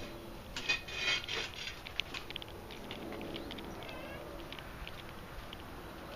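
A cat scrabbling on an umbrella: a burst of rustling, scraping clicks about a second in, then a few scattered clicks, and a brief high chirp about four seconds in.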